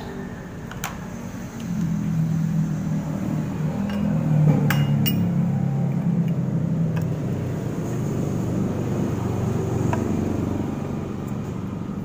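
A low rumble that swells about a second and a half in and eases off near the end, with a few sharp metallic clicks from a Zippo lighter insert and a fuel can being handled.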